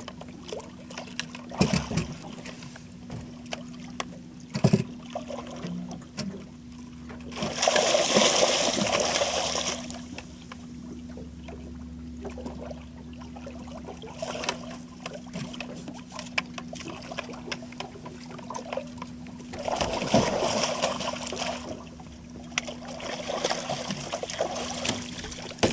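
Water splashing as a hooked catfish thrashes at the surface beside the boat, in loud bursts about eight seconds in and again about twenty seconds in, with a few sharp knocks early on. A faint steady low hum runs underneath.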